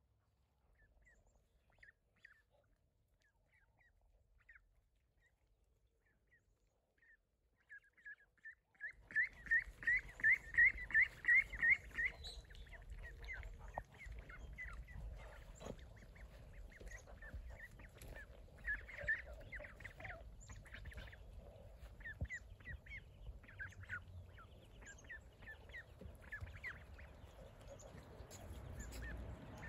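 A flock of young Saxony and Muscovy ducks calling with short, high peeps. Scattered at first, then a fast, loud run of peeps about nine seconds in, then calls on and off over a steady outdoor background.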